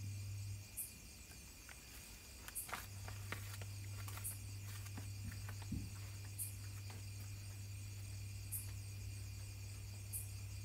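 Night insect chorus of crickets trilling steadily, with short high chirps repeating about every two seconds. A low steady hum drops out near the start and returns about three seconds in, and a few faint clicks come between about two and five seconds in.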